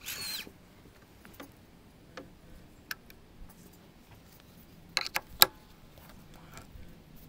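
Small, sharp metallic clicks and taps from a hex key being set into the adjustment bolts of a steel bamboo-rod planing form: a brief scrape at the start, scattered light ticks, then three louder clicks in quick succession about five seconds in.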